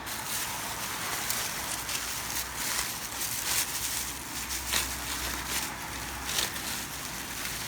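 Rustling and crackling of paper and plastic wrapping as books are handled.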